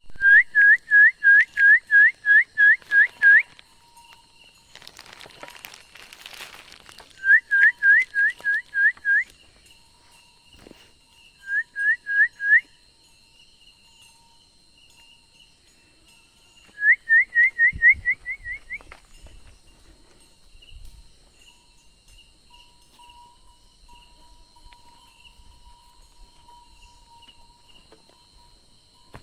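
Short rising whistled notes, about four a second, in four runs: a long run at the start, two shorter runs a few seconds apart, and another long run about 17 seconds in.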